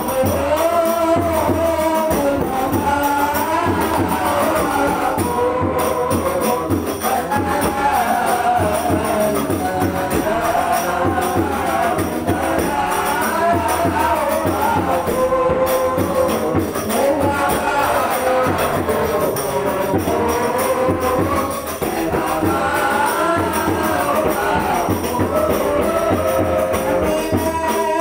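Background music with a bending melody over a dense, busy beat, running steadily throughout.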